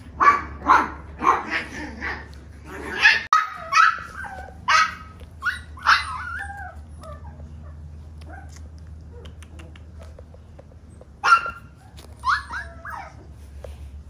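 Miniature Schnauzer puppy yipping: a run of short, high barks and yelps, some falling in pitch, over the first six seconds, then a single sharp yip and a few wavering whimpers near the end.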